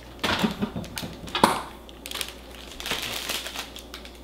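Plastic bag of mushrooms crinkling and crackling as it is handled, in irregular bursts, loudest about a second and a half in.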